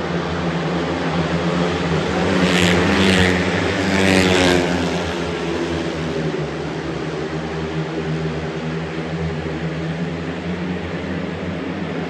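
Speedway motorcycles racing around a dirt oval at high revs, the engines' pitch rising and falling through the turns. They are loudest as the bikes pass close, between about two and a half and four and a half seconds in, then settle to a steadier drone as the pack moves off.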